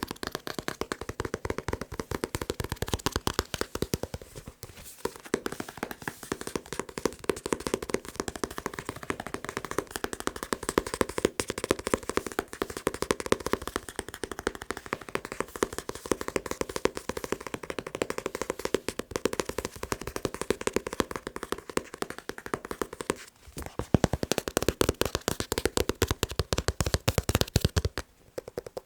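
Fast tapping on a manga book, a dense continuous run of quick taps with short breaks about five seconds in and twice near the end.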